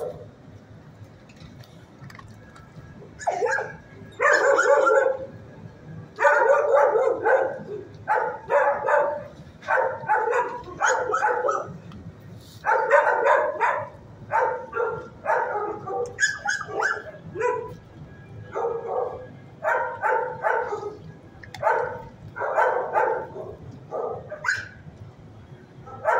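Dog barking repeatedly in runs of short barks, starting about three seconds in and going on to the end.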